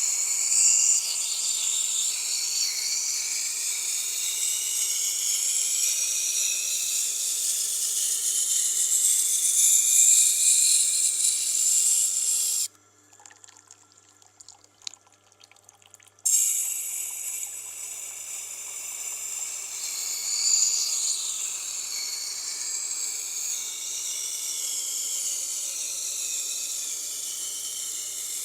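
Knife blade being sharpened on a Tormek wet grinder: a steady, high scraping hiss of steel against the turning wheel, broken off for a few seconds about halfway through while the blade is lifted, then resuming. A faint low hum from the grinder's motor runs underneath.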